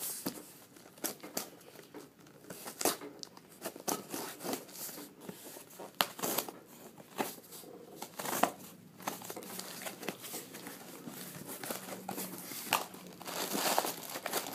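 Cardboard shipping box being handled and its flaps pulled open: irregular rustling and crinkling of cardboard and packing with scattered sharp taps, busiest near the end.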